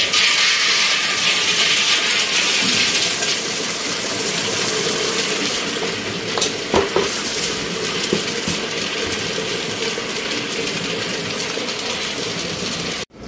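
Whole almonds pouring from a tub into the mortar of a wooden oil ghani, a dry rushing rattle at its loudest in the first few seconds. The kernels then keep up a steady rattling hiss in the mortar, with a few sharp clicks partway through, and the sound cuts off abruptly near the end.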